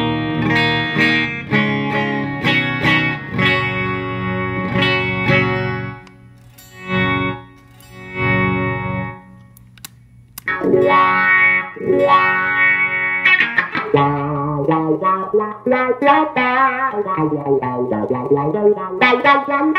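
Electric guitar, a Stratocaster on its bridge pickup, played through a Dunlop Mister Cry Baby Super wah/volume pedal: chords and single notes, with a quieter stretch of swells in the middle. From about fourteen seconds in, the tone sweeps up and down as the pedal is rocked, the wah's quack.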